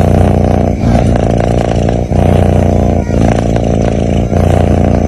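Sleeping kitten snoring: a loud, continuous buzzing rasp broken by short dips about once a second, where the breath turns over.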